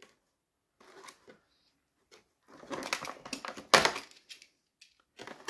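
Clicks and crinkles of a clear plastic blister tray being handled while the ties holding an action figure in it are cut free with a utility knife. The sounds are sparse at first and bunch together after about two and a half seconds, with the loudest, a sharp click, close to four seconds in.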